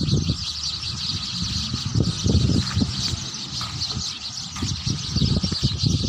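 A dense chorus of many small birds chirping together from inside a thick hedge, a continuous chatter of short high chirps. A low rumble runs underneath.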